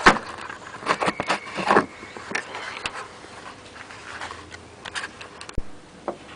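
Handling noises: a run of small clicks and rustles, busiest in the first two seconds, with a sharper knock about five and a half seconds in, as hands work with a screwdriver and a solvent-dampened cotton rag around the engine's belt pulleys.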